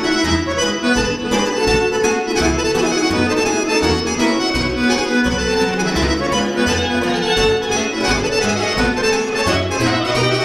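Live band playing dance music: an electric guitar and a lead melody over a steady bass beat.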